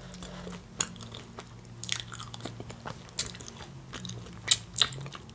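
Close-miked mouth sounds of a person eating: chewing with wet smacks and a few sharp crunchy bites.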